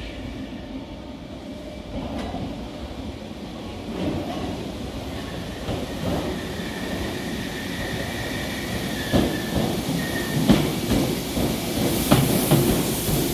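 Merseyrail Class 507 electric multiple unit approaching through the tunnel into an underground platform, growing steadily louder. A thin wheel squeal sounds from about five seconds in to about ten, and the wheels click over rail joints more and more as the train pulls in near the end.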